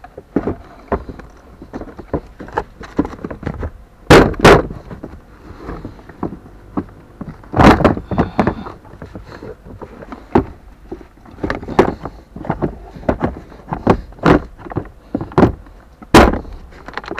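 Plastic glove box of a Suzuki Ertiga being handled and fitted back into the dashboard: a string of sharp plastic clicks and knocks. The loudest come as a pair about four seconds in, again around eight seconds in, and near the end.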